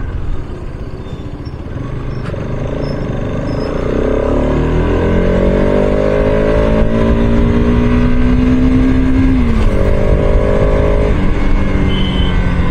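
Bajaj Pulsar RS200's single-cylinder engine accelerating on the move, its pitch climbing for several seconds, dropping sharply about nine and a half seconds in, holding briefly, then falling away near the end.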